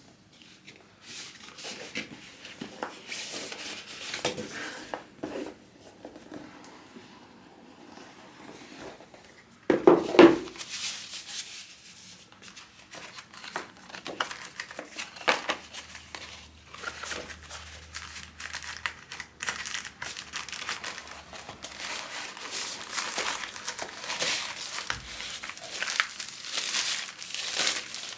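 Keyboard packaging being unwrapped by hand: crinkling wrapping with some tearing and handling clicks. A louder knock comes about ten seconds in, and the crinkling gets denser toward the end.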